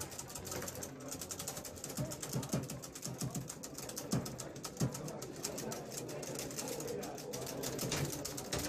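Foosball table in play: the ball tapped and knocked by the plastic figures, with rods sliding and clacking. There are uneven clicks throughout and a few short low thuds.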